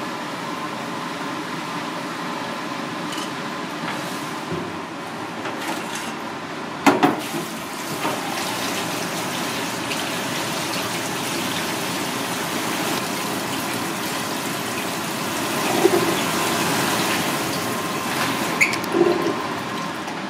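Kitchen tap running into a stainless steel sink while blanched fish bones are rinsed clean by hand, with a few short knocks from the pot and sink.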